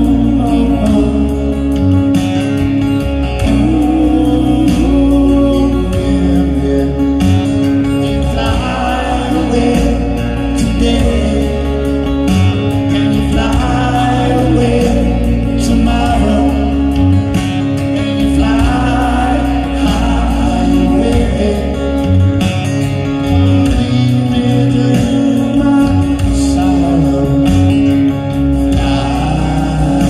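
Live band music with an electric bass guitar and a voice singing.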